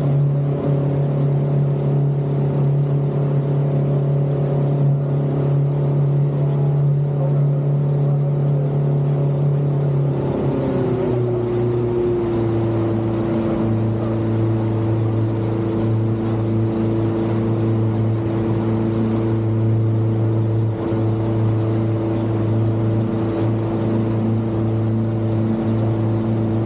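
Outboard motor of a fast passenger boat running at speed, a steady engine drone over rushing water and wake noise. About ten seconds in, the engine pitch drops and settles at a lower, steady speed.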